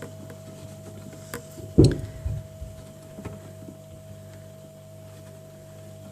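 Fittings inside an open larder fridge being handled: one solid knock about two seconds in and a few lighter clicks, over a steady low hum.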